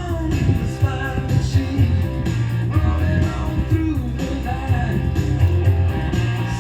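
Rock music with a singing voice, electric guitar and a steady bass line.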